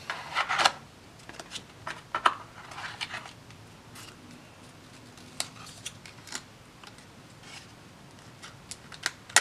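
Paper and cardboard packaging being handled: a phone box's cardboard tray and a folded paper card insert rustling, sliding and tapping in short irregular bursts, busiest in the first three seconds.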